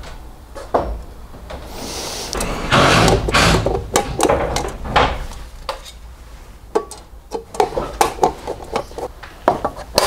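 Handling noise at a plastic consumer unit: a stretch of loud rubbing and scraping about three seconds in, then a run of quick sharp clicks and knocks as the hinged cover and breaker switches are worked.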